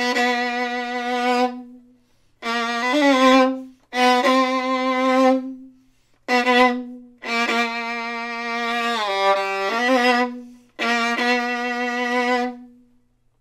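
Solo violin played loud in its low register on the G string, recorded from about three feet away. About six long bowed notes or phrases are separated by short breaks, with the pitch sliding between notes in places.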